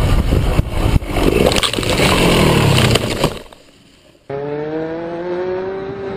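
Motorcycle crashing off the road into brush: loud engine and wind noise with knocks and scraping, dropping away to quiet about three seconds in. About a second later, another motorcycle's engine is heard, its pitch rising steadily as it accelerates.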